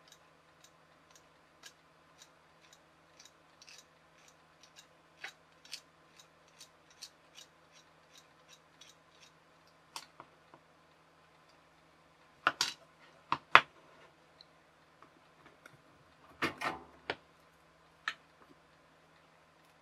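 Light sharp clicks from hand work with a small circuit board and hand tools, about two a second, then a few louder clicks and knocks later on as tools are put down and picked up.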